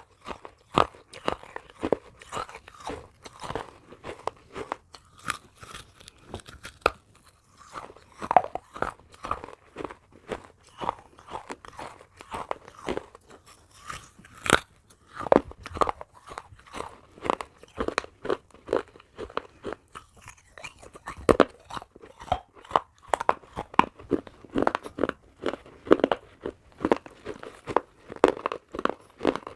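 Close-up crunching as pieces of baked clay pot are bitten and chewed, a steady run of sharp crackly crunches a few times a second throughout.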